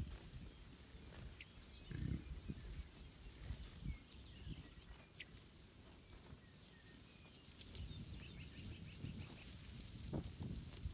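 A bison herd heard outdoors: occasional low grunts over a rumble of wind, with a small high chirp repeating about once a second through most of it.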